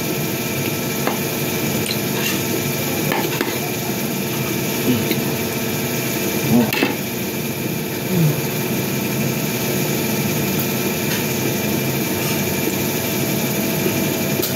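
A steady machine hum made up of several tones, with a few light clicks of a metal spoon against a ceramic bowl and brief eating noises.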